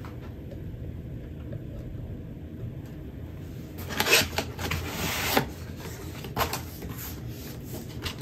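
Cardboard box being opened by hand: from about four seconds in, flaps are pulled back and cardboard and plastic wrapping scrape and rustle in several short bursts, over a steady low hum.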